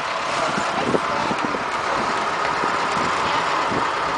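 Steady running noise of a moving farm hayride wagon and the vehicle towing it, with faint chatter of riders underneath.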